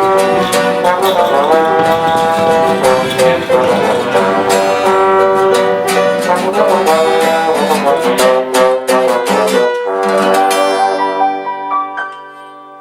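Upbeat music with plucked strings, brass and a steady beat, ending about ten seconds in on a held chord that fades away.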